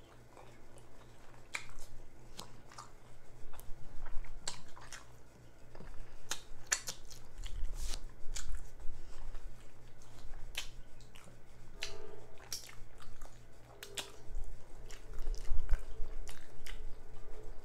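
Close-miked chewing, biting and lip-smacking of a jalapeño cheddar sausage in a bun with peppers and onions: wet mouth clicks and smacks at an irregular pace.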